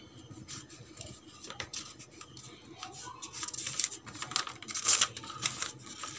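White wrapping paper crinkling and rustling as a shawarma is rolled up in it by hand: a run of small crackles that gets busier about four seconds in.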